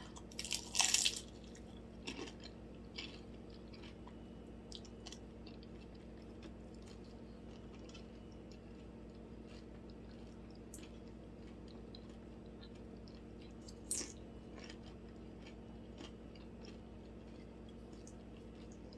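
A loud crisp crunch as a fried crab rangoon is bitten about a second in, then quiet chewing with a few small crunches, close to the microphone.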